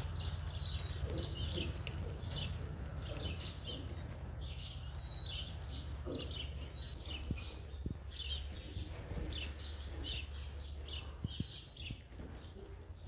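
Small birds chirping again and again in short, high calls, over a low steady rumble.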